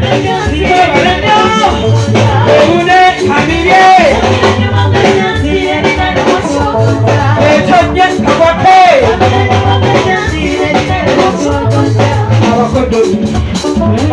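Upbeat pop music with a steady beat, a repeating bass line, shaker percussion and sung vocal lines.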